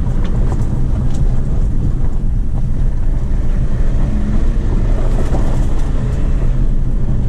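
2018 Jeep Compass Trailhawk's turbo-diesel engine pulling steadily under way, heard from inside the cabin as a low steady drone mixed with tyre and suspension rumble from a rough dirt road.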